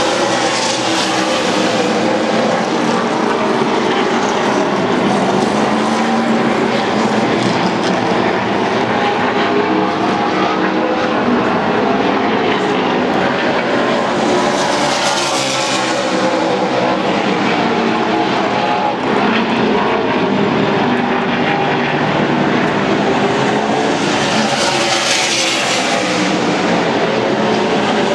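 Several NASCAR Nationwide Series stock cars' V8 engines running at speed on track, their pitches rising and falling as they lap. The sound swells twice, about halfway through and again near the end, as cars pass close by.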